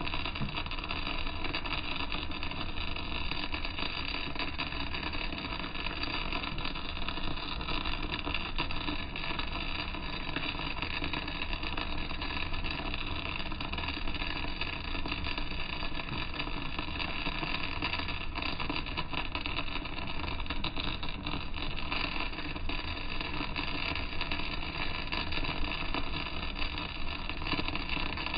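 Arc welding running without a break: the steady crackle and sizzle of the arc laying a vertical-down weld on steel plate.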